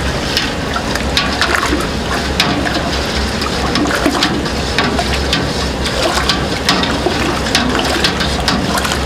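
Liquid sloshing and splashing, with irregular light clinks, while seasoning dissolves into a soy sauce and mirin mixture. A steady low hum runs underneath.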